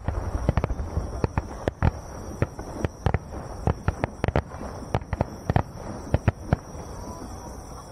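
Aerial firework shells bursting in a rapid, irregular series of sharp bangs, several a second.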